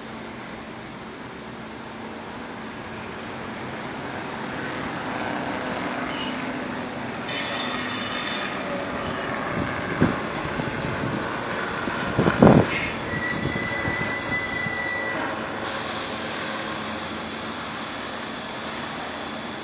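Electric commuter train running along the station track, the rumble of its wheels and cars building up and then easing off. Two sharp metallic clanks come about halfway through, the second the loudest, followed by a brief high wheel squeal.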